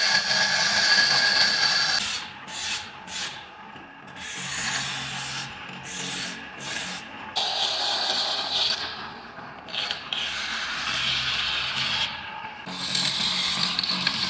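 Rasping, scraping noise of abrasive work on metal, coming in several stretches with sudden breaks and changes between them.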